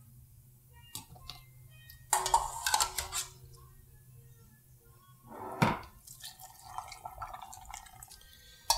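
Short clatters and knocks of kitchenware: a plastic canning funnel set down on a glass mason jar about two seconds in, then a single sharp knock of a ladle in a stainless saucepan of beef broth a little past halfway.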